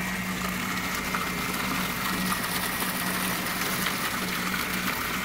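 Sweet wort gushing and splashing into a mash tun for a second mash, with a brewhouse pump's steady hum under it.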